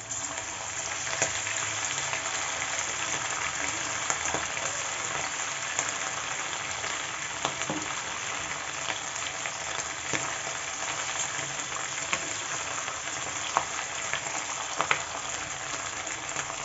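Cornflour-marinated boneless chicken pieces frying in hot oil in a kadai: a steady sizzling hiss with scattered crackling pops.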